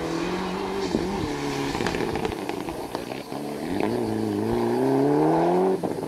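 Rally car engine at full throttle, its revs dipping at a gear change about a second in, then climbing steadily and getting louder as the car comes past, before cutting off abruptly near the end.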